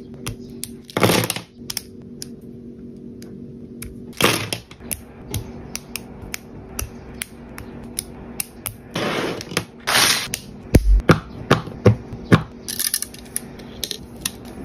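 Small hard parts being handled and fitted together: scattered clicks and taps, with a run of sharper knocks near the end, over a steady low hum.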